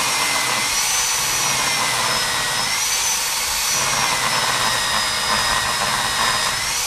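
Electric diamond core drill boring with water, its motor running with a steady high whine that dips slightly in pitch now and then as the bit loads up in the cut.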